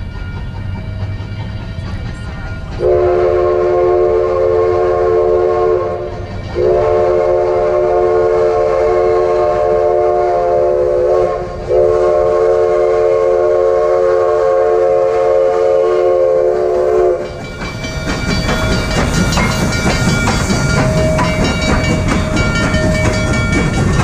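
Steam locomotive whistle on the Durango & Silverton narrow-gauge train sounding three long, chime-like blasts, the second and third longer than the first. Under and after them the moving train rumbles and its wheels clatter on the rails, growing brighter and louder after the whistle stops.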